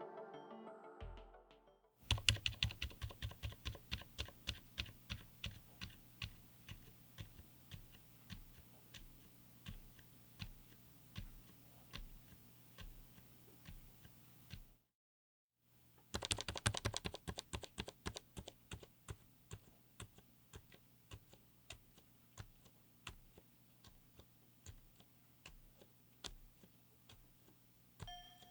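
Typing on a mechanical keyboard fitted with Outemu Silent Peach V3 silent linear switches, in an FR4-plate, aluminium-cased 60% board: soft, muted keystrokes, several a second. The typing comes in two runs with a brief silent break about halfway.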